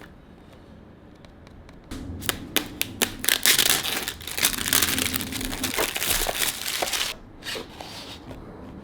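Unboxing packaging being handled and unwrapped: dense crinkling and rustling with many sharp clicks, starting about two seconds in and dying down near the end to a few scattered clicks.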